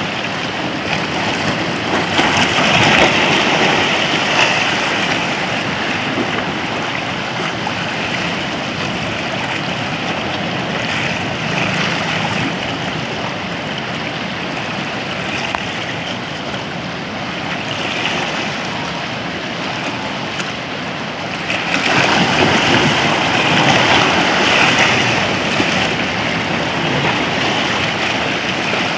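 Sea water washing and sloshing around rocks in the shallows, with small waves surging. It swells louder twice, a few seconds in and again about three-quarters of the way through.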